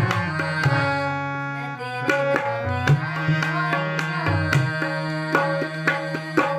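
Harmonium sustaining a melody with tabla accompaniment, the tabla strokes landing a few times a second in a steady beat. A girl's voice sings along in places.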